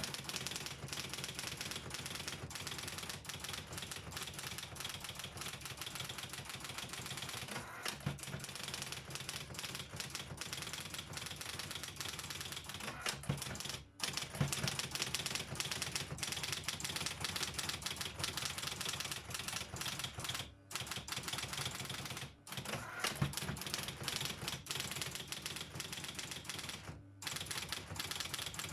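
Robotron 202 electric typewriter being typed on: a fast, continuous run of key and typebar strikes over the steady hum of its motor, broken by a few short pauses.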